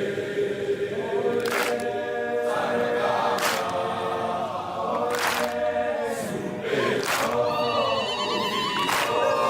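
A large group of schoolboys singing a chant together in unison, with a sharp beat about every two seconds.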